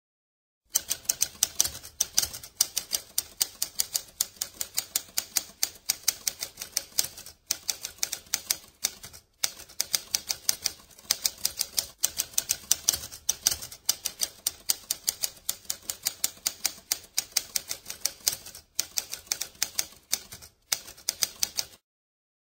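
Typewriter keys clacking in a rapid, steady stream of strikes, broken by a few brief pauses, starting about a second in and stopping just before the end.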